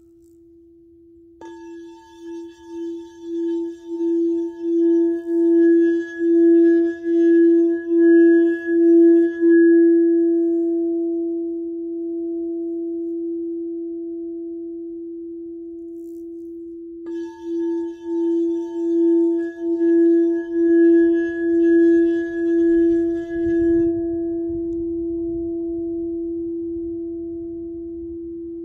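Frosted crystal singing bowl sounding one steady tone: it is tapped with its suede mallet, then swells louder in even pulsing waves as the mallet is worked around the rim, then rings on and slowly fades once the mallet comes away. This happens twice, about 16 seconds apart.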